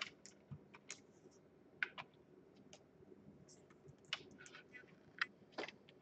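Faint, scattered clicks and light taps of handling at the workbench, as an analog multimeter and its test probes are set down and moved about on a laptop motherboard.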